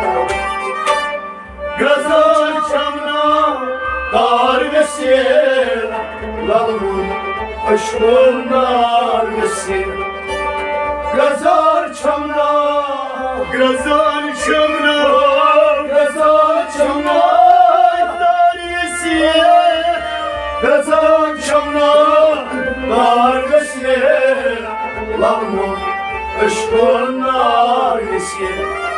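Kashmiri folk song performed live: a man singing at a harmonium, accompanied by a bowed sarangi and a plucked rabab.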